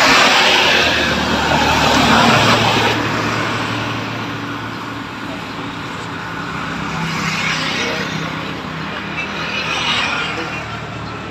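Passing motor vehicles, their engine and road noise swelling and fading: loudest in the first three seconds, then again about seven and ten seconds in.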